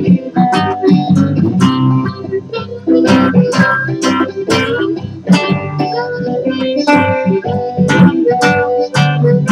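Blues played fingerstyle on a nylon-string classical guitar: plucked bass notes under a picked melody, each note struck sharply and ringing out.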